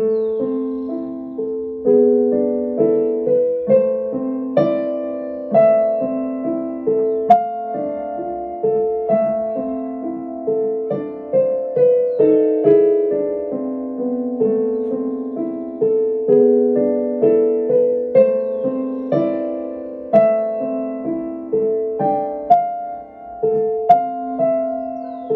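Digital piano played solo: a gentle melody over a lower accompaniment, notes struck at an even, moderate pace and left to ring out.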